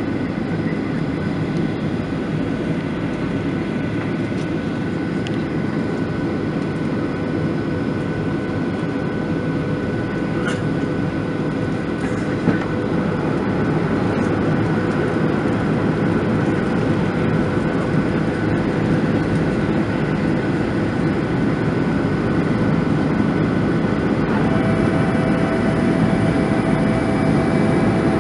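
Steady cabin noise inside a Boeing 737-900ER over the wing: the CFM56-7B engines and rushing air, with several steady whining tones on top. It grows slightly louder from about halfway, one click comes about twelve seconds in, and new higher whining tones join near the end.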